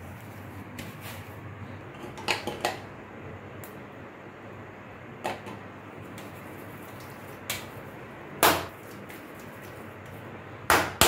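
Hands patting and slapping balls of paratha dough against a stone countertop. There are about seven sharp slaps at irregular intervals, some in pairs, the loudest about eight and a half seconds in, over a steady background hiss.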